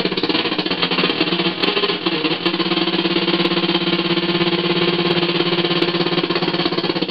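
Electric guitar played through a breadboarded Schumann Two Face fuzz circuit: a heavily distorted, buzzy tone with a rapid pulsing texture, settling into one held note about two and a half seconds in.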